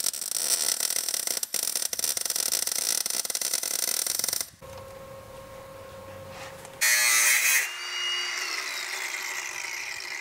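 MIG welder crackling steadily as sheet steel is welded into a car's transmission tunnel, cutting off about four and a half seconds in. Near the end, a short loud power-tool burst, then a falling whine as the tool winds down.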